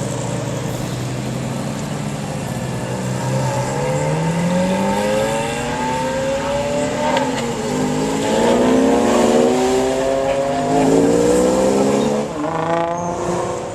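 Sports car engine running steadily, then revving up under acceleration. Its pitch climbs, drops back briefly around the middle, and climbs again.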